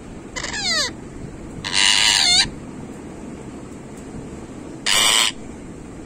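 Rose-ringed parakeet giving three loud, harsh screeches, the first falling in pitch and the second the longest: agitated, angry calls.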